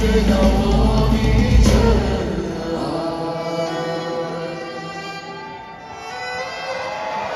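Live concert music at a song's close: the full band with heavy bass stops about two seconds in, leaving wordless held sung notes that slide in pitch and fade. The crowd starts cheering near the end.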